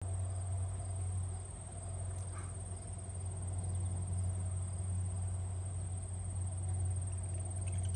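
Insects trilling steadily in a high pitch over a steady low rumble.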